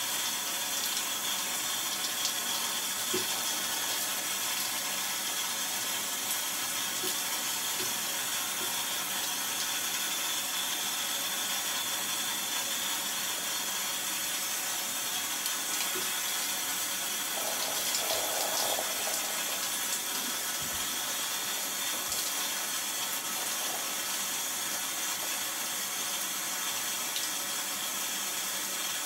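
Handheld shower head spraying a steady stream of water onto a soaked T-shirt and into the tiled shower stall, a continuous hiss of running water.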